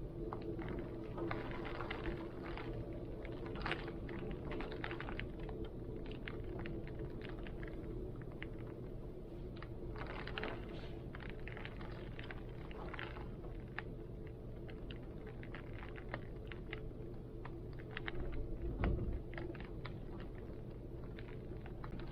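Rain and heavy wind: a steady low rumble of wind under many small, irregular ticks of raindrops striking surfaces, with a louder low gust near the end.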